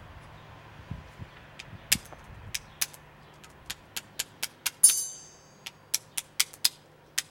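Sharp metallic clicks and clinks as chainring bolts are handled against a bicycle chainring, more than a dozen in all, with one louder clink about five seconds in that rings briefly.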